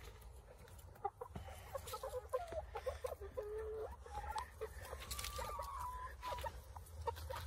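Hens clucking in short calls from about a second in, with one longer drawn-out call a little past the middle.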